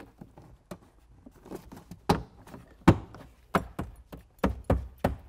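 Hands working a car's plastic interior trim and rubber door weather stripping: irregular clicks and knocks, the loudest about three seconds in, coming quicker near the end.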